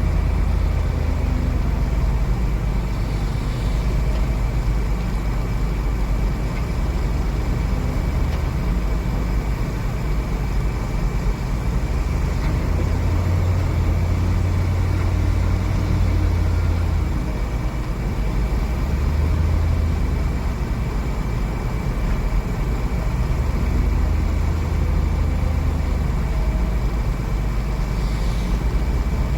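A JCB 3DX backhoe loader's diesel engine running steadily with a deep low rumble, swelling several times in the middle of the stretch, under a thin steady high whine.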